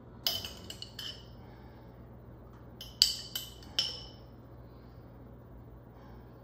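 A metal spoon clinking against stainless steel baking pans while pizza sauce is spread on hoagie buns. There are sharp clinks with a short ringing tail: a few in the first second, then a louder group about three to four seconds in.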